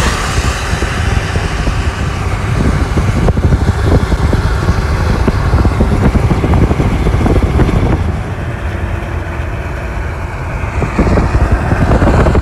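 Loud rushing wind and road rumble from a vehicle travelling at highway speed. The noise eases a little about eight seconds in and swells again near the end.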